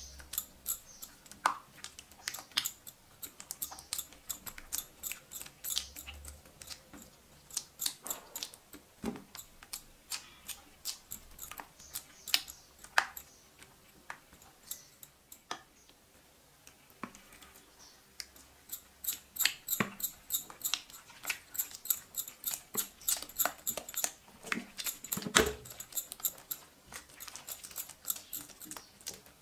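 Foamy shampoo-and-glue slime being stirred and folded with a silicone spatula in a glass dish: irregular wet, sticky squelches and clicks.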